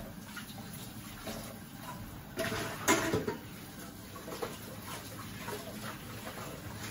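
Kitchen tap running into a stainless steel sink while dishes are washed by hand, with a brief clatter of dishware against the sink about three seconds in.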